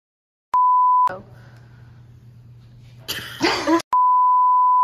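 Censor bleeps: a steady single-pitch electronic beep tone for about half a second, then a low room hum, a short noisy burst around three seconds in, and the same beep tone again from about four seconds in, held as the test tone over colour bars.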